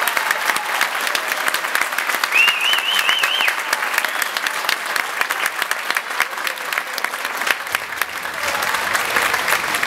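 Audience applauding at the end of a children's dance number: dense, steady clapping. A brief high, wavering tone rises above the clapping about two and a half seconds in.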